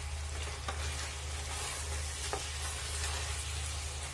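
Chicken pieces with onion, tomato and ground spices sizzling in oil in a pot while a wooden spatula stirs them, with a couple of light knocks of the spatula against the pot, over a steady low hum. This is the bhuna stage, where the masala and chicken are fried together.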